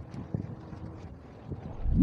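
Wind buffeting the microphone: a low, uneven rumble with a few faint ticks.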